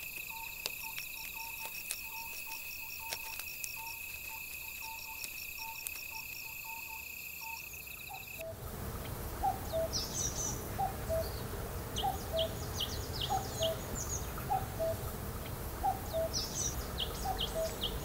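Night forest ambience: insects trilling steadily and shrilly, with a soft note repeating about twice a second. About eight seconds in it changes abruptly to daytime forest birdsong: a falling two-note bird call repeated about once a second, with scattered higher chirps of other birds.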